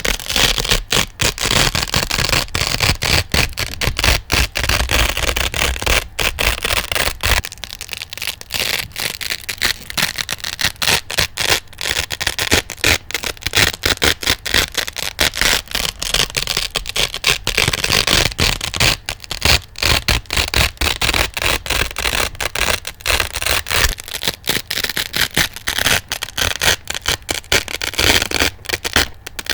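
Hook-and-loop velcro being ripped apart and scratched over and over close to the microphone: a continuous dense crackling rasp broken by brief pauses.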